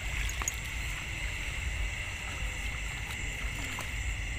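Outdoor night ambience: a steady high-pitched chorus of night insects over a low rumble of wind on the microphone, with a few faint clicks.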